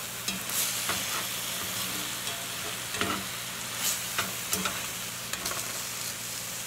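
Hamburger patties, mushrooms and onions sizzling in a cast iron skillet, with a slotted spatula scraping and knocking against the pan several times as the food is pushed around.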